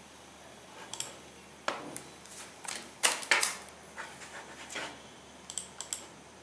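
Scattered clicks and taps of a laptop's keyboard and touchpad buttons as menus are worked, loudest in a quick cluster about three seconds in.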